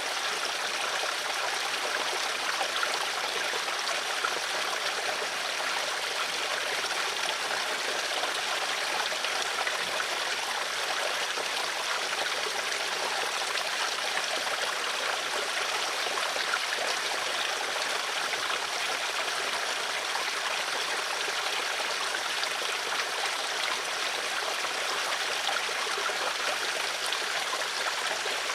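Stream water flowing and trickling in a steady, even rush, mostly in the middle and upper range with little low rumble.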